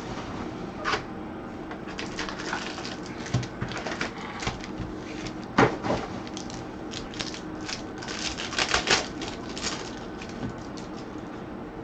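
Trading-card pack being opened and cards handled: irregular clicks, crinkles and rustles of the wrapper and card stock, busiest about eight to nine seconds in.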